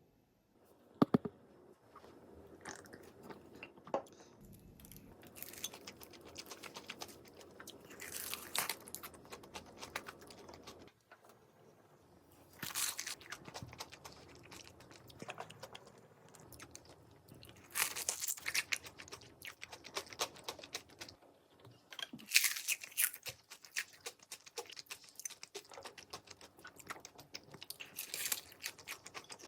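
Close-up crunching bites and chewing of crispy-coated fried chicken (Cheetos-seasoned), with several loud crunches spread through and quieter chewing between them.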